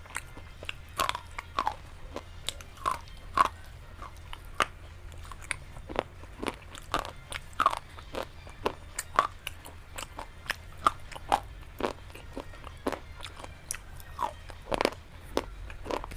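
Close-miked biting and chewing of something hard and brittle: irregular sharp crunches, about one or two a second, the loudest one near the end, over a faint low hum.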